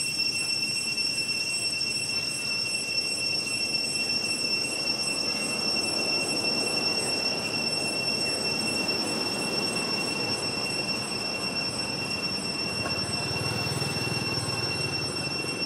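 Steady, high-pitched drone of insects, one unbroken whine with overtones, over a low background rumble.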